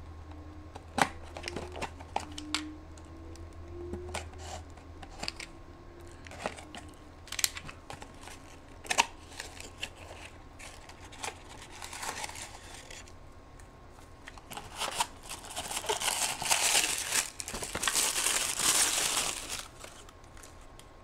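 A small cardboard package being cut open with a knife and unwrapped: scattered clicks and scrapes, then several seconds of packaging crinkling and tearing in the last third.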